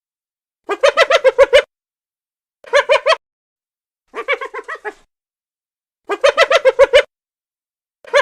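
A bird calling in short bursts of rapid pulses, about nine pulses a second, repeated four times with gaps, and a fifth burst starting near the end.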